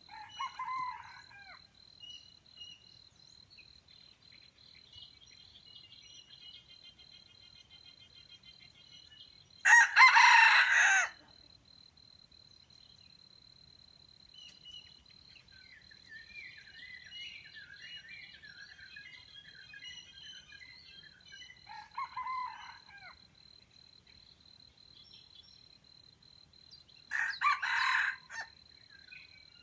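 Wild junglefowl rooster crowing, loudest about ten seconds in and again near the end, with shorter calls near the start and about two-thirds of the way through. A steady high cricket trill runs underneath.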